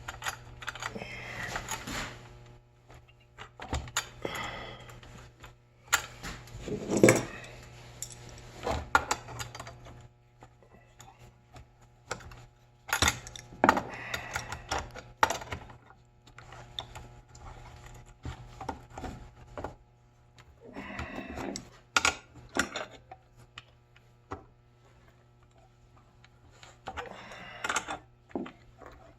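Irregular metal clicks, clinks and rattles of small hand tools and parts as a nut is tightened down on the drive shaft of a Samsung ice maker's auger drive motor, clamping a homemade stainless steel drive piece, over a steady low hum.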